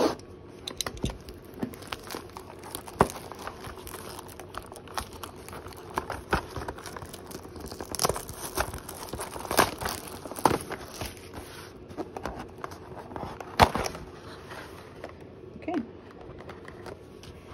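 Trading-card box and pack wrapper being torn open and crinkled, with irregular sharp crackles and snaps and one louder snap near the end.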